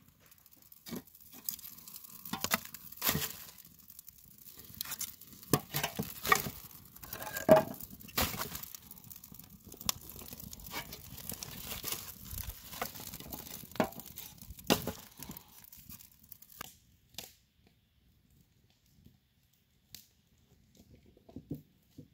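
Birch bark tinder and dry leaves catching fire in a fire pit, crackling with dense, irregular snaps and pops; the crackling dies down about sixteen seconds in, leaving a few faint clicks.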